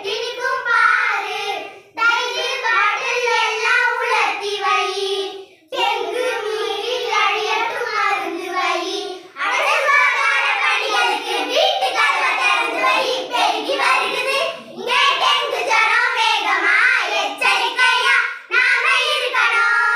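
A group of young girls singing a Tamil dengue-awareness song together, in phrases with short breaks between lines.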